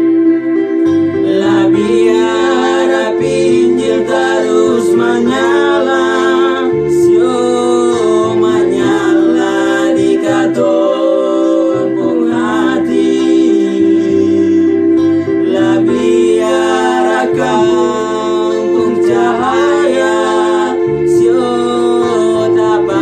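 Music: a gospel song sung over guitar accompaniment.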